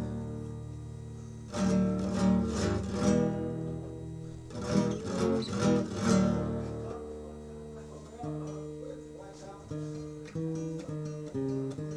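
Acoustic guitar strumming a few loud chords, then picking a melody of single notes from about seven seconds in, an instrumental lead-in before the song's vocals.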